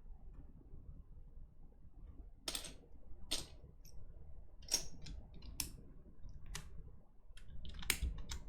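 Scattered sharp clicks and clacks of small hard objects being handled, roughly one every second with no steady rhythm, over a steady low hum.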